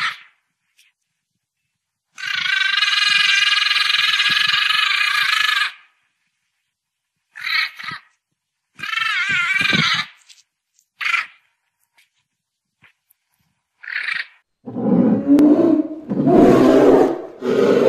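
Animal calls: one long, high call, then several short, wavering high calls, and from about three-quarters of the way in a loud, low, rasping growl-like sound.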